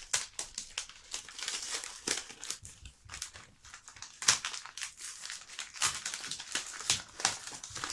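Wrapping paper crinkling and rustling as a small gift is handled and unwrapped, in dense irregular crackles with a few sharper rips.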